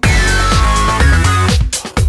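Electronic dance music with a steady kick drum beat and synth notes.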